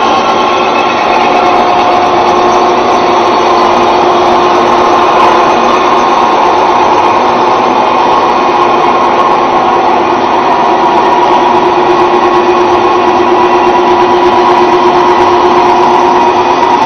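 Twelve-spindle multi-spindle drilling machine running, a loud, steady mechanical whine with a few constant pitches.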